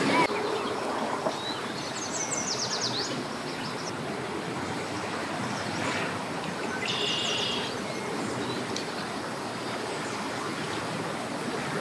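Steady outdoor rushing noise of wind and water. A bird chirps in short high calls about two seconds in and again about seven seconds in.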